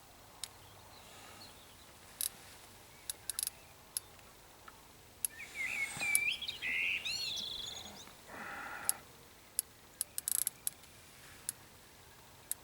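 A songbird sings one short phrase of rising and falling whistled notes about five seconds in, over a quiet outdoor background with scattered sharp clicks.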